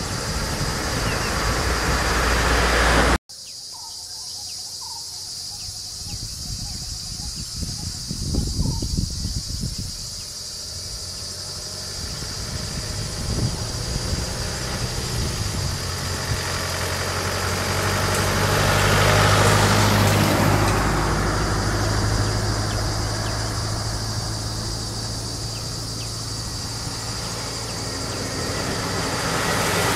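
Motor vehicles passing slowly along a road, their engines running, over a steady high drone of insects. The sound cuts off abruptly about three seconds in and comes back quieter. An engine hum then builds to a peak past the middle, and another vehicle draws near at the end.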